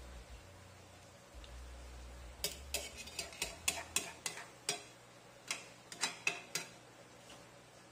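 Metal spatula clinking and scraping against an aluminium wok while stirring vegetables in coconut milk: a quick, irregular run of sharp clinks starting about two and a half seconds in and stopping a little over a second before the end.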